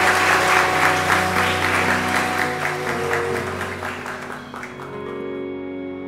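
Crowd of wedding guests applauding over soft instrumental music; the applause fades out after about four seconds, leaving the music alone.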